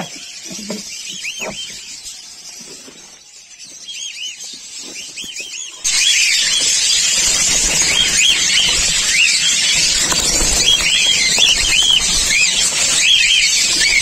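A flock of cockatiels calling in an aviary: many short rising-and-falling chirps. About six seconds in it suddenly becomes much louder, a dense chorus of overlapping screeching calls with a hissy wash behind them.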